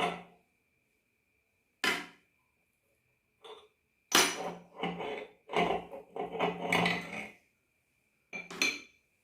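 Hard knocks and clatter: single knocks at the start and about two seconds in, a run of clattering knocks from about four to seven seconds in, and one more near the end. A faint steady high whine runs underneath.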